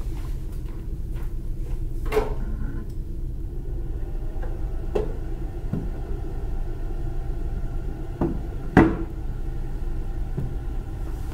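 Scattered knocks and clunks of lab equipment being handled, about six of them, the loudest about nine seconds in, over a steady low hum.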